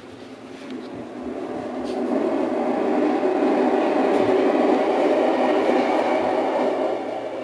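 A recorded sound from a noise-habituation CD played to dogs. It is a dense, steady noise that swells over the first two seconds, holds loud, and fades near the end.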